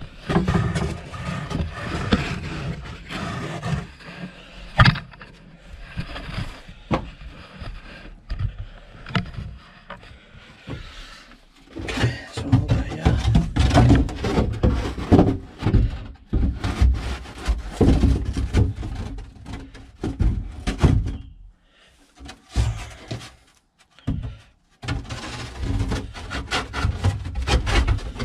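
Board panels being handled and fitted into a fiberglass boat hull: irregular scraping, rubbing and knocking of the boards against the hull, with two short pauses near the end.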